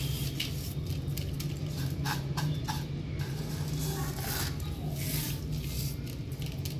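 Crisp deep-fried onions being crushed by hand and dropped into a bowl, a scattered dry crackling rustle in short bursts, over a steady low hum.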